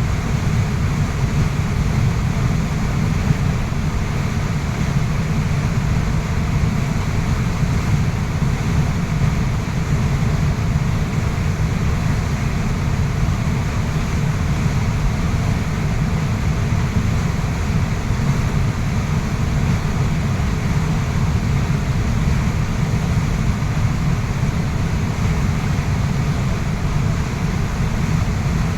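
Waterfall: water pouring and rushing steadily, a loud, even, deep rumble with no breaks.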